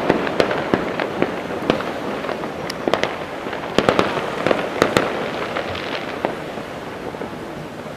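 Distant fireworks display at Taipei 101: a continuous crackling rumble with many irregular sharp bangs, thinning out and fading over the last two seconds.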